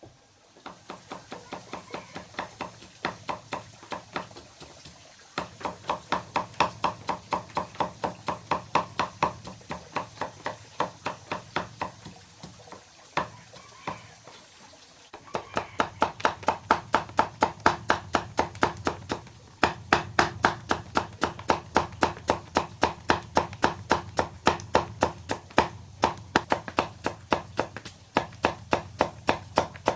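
Rapid, regular strokes of repetitive hand work, about four a second, each with a short ringing tone. They come in two long runs with a brief break near the middle, and the second run is louder.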